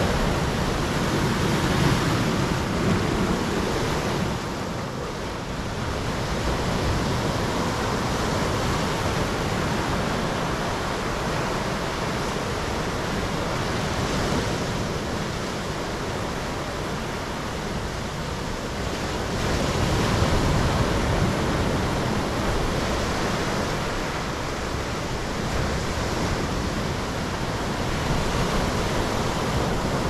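Ocean surf on a black-sand beach: waves breaking and foam washing up the shore and draining back, a steady rush that swells louder as each wave comes in and eases between them.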